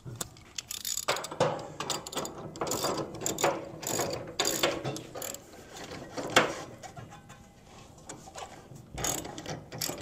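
Motorcycle scissor jack being cranked up by hand, a ratcheting clicking in quick repeated strokes that lifts the rear wheel off the ground. The cranking pauses about seven seconds in and starts again near the end.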